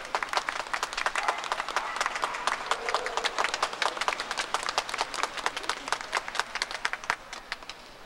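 Crowd applauding: many hands clapping fast and densely, dying away near the end.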